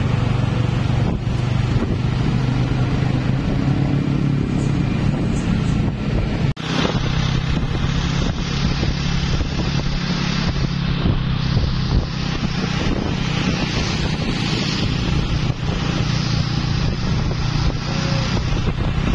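Vehicle engines running steadily in road traffic, with wind rushing over the microphone; the sound changes abruptly about six and a half seconds in.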